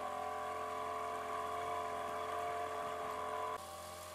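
A trailer sailer's outboard motor running steadily under way, a constant engine drone. About three and a half seconds in, the sound drops suddenly to a quieter level.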